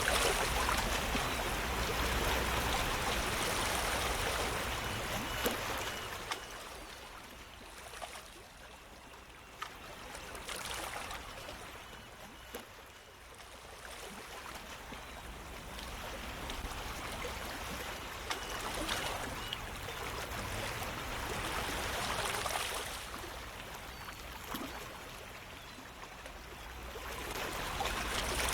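Flowing water, a steady rushing noise that swells and fades slowly over several seconds, with a few faint clicks.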